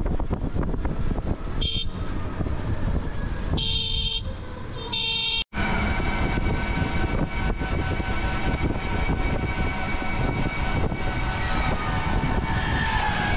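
Road noise from riding an open vehicle along a highway: a steady low rumble, with three short vehicle horn honks in the first five or so seconds. The sound cuts out for an instant about five and a half seconds in, then the rumble continues with a steady high whine over it.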